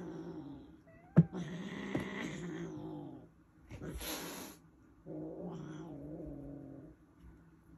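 Kittens play-fighting: long, low, drawn-out yowling growls, three in a row, with a short hiss about four seconds in. A sharp knock just over a second in is the loudest moment.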